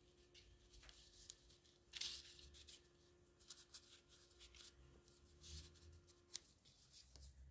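Near silence with a few faint rustles of paper being handled and laid in place on a card. A faint steady hum stops near the end.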